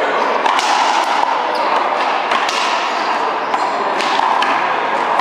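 Racquetball being struck by strung racquets and bouncing off the wall and floor during a rally: a run of sharp smacks every half second to a second, over steady background noise.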